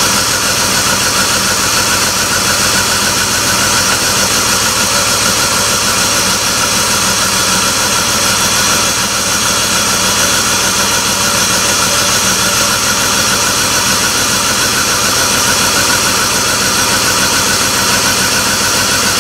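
2004 BMW 325xi's 2.5-litre inline-six engine running steadily, with an even low pulse, while a compression gauge on cylinder four builds pressure.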